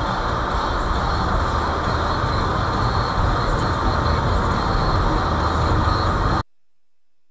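Steady road and engine noise inside a moving car, picked up by a dashcam microphone: a low rumble under a broad hiss of tyres and wind. It cuts off abruptly about six and a half seconds in.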